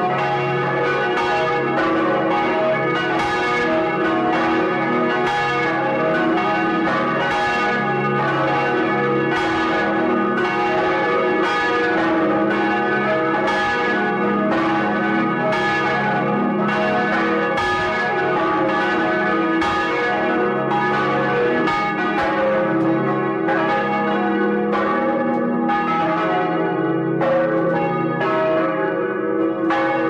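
Several large swinging bronze church bells ringing together in full peal, heard close up inside the bell chamber. Clapper strikes follow one another less than a second apart and overlap, over a lasting deep hum.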